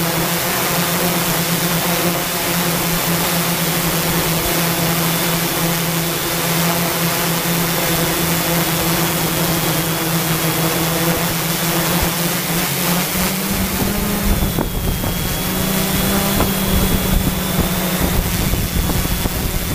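Quadcopter drone's motors and propellers whirring steadily with a thin high whine over the hum. About two thirds of the way through, the pitch steps up slightly and a rough low rumble joins as the drone comes down close to the ground.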